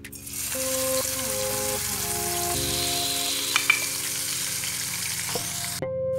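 Hot oil sizzling as food fries in a pan, with two sharp clicks about three and a half seconds in. The sizzle cuts off suddenly near the end.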